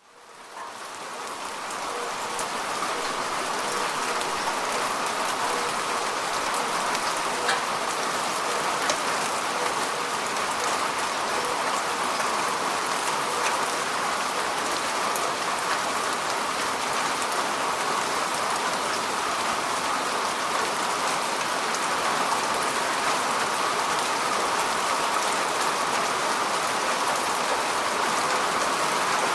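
Steady falling rain, an even hiss with scattered drop ticks, fading in over the first couple of seconds.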